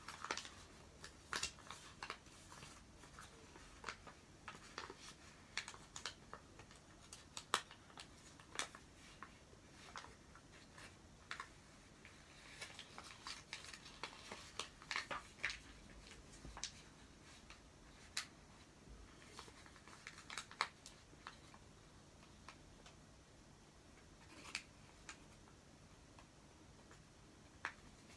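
Origami paper crackling and rustling in scattered sharp clicks as hands fold and press the walls of a masu box; the crackles thin out over the last several seconds.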